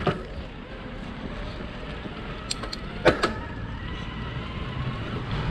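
An e-bike being ridden, with wind and road rumble on the microphone and a few sharp clicks. From about three seconds in, the faint whine of the Bosch mid-drive motor comes in and rises slightly.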